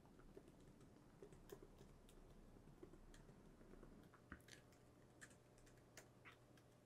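Faint typing on a laptop keyboard: scattered, uneven key clicks as a message is typed out.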